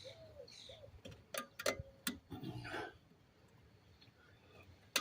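A few sharp metal clicks and a brief clink from drum-brake hardware and hand tools being worked on, with a short scraping rustle after them and one more click at the very end.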